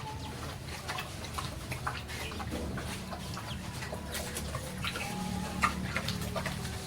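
Farmyard animal sounds with short bird-like calls, over many scattered clicks and knocks and a steady low hum.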